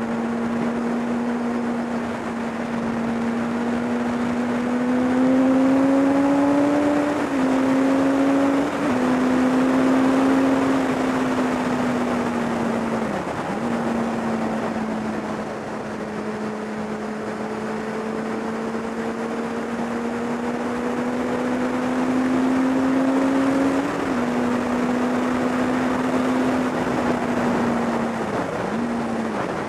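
Kawasaki ZX10R's inline-four engine running at a steady cruise, its note slowly climbing and then stepping down sharply a few times, with brief dips about thirteen seconds in and again near the end. Loud wind rushes over the microphone throughout.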